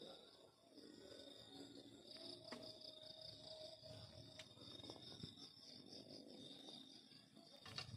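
Crickets chirping: a faint, steady high trill with a pulsing chirp layered just above it, and a few small clicks.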